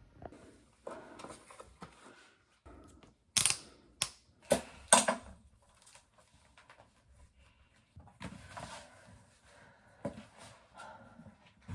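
Four sharp clacks about half a second apart, then clothing rustling, as a rider gets into riding gear in front of the boot shelves.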